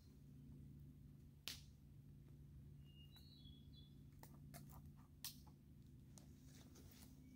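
Near silence with a low steady hum, a few faint clicks of handling, and a couple of short high chirps about three seconds in.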